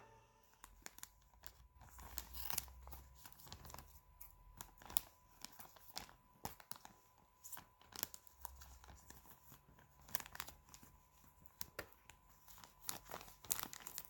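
Faint, irregular crinkling and tearing of packaging, with scattered clicks and knocks of plastic being handled.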